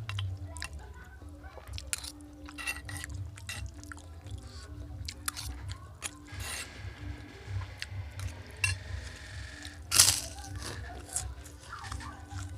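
Close-miked eating: chewing and crunching with many scattered clicks, and one much louder sharp crack about ten seconds in, over a steady low hum.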